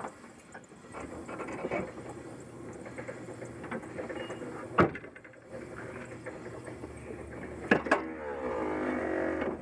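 Turbocharged car engine running, heard from inside its engine bay. There are two sharp knocks, about five seconds in and near eight seconds. In the last second and a half a whine falls in pitch as it winds down.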